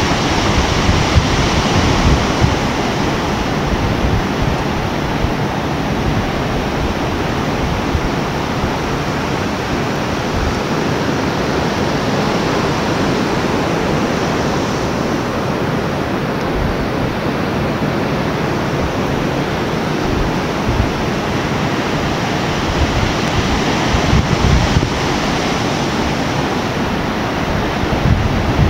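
Surf washing over the rocks below a sea cliff in a steady rush, mixed with wind gusting on the microphone.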